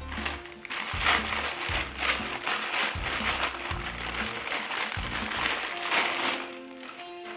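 Plastic packaging crinkling and rustling in quick irregular crackles as a new fishing reel is unwrapped, dying away near the end. Background music plays underneath.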